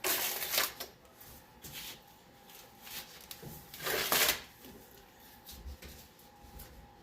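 Fabric sock covers being pulled off spoiler parts: rustling and sliding cloth, with two louder swishes, one at the start and one about four seconds in.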